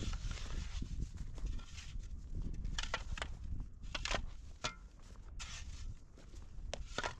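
Irregular steps on the ground, with several sharp knocks in the second half over a steady low rumble.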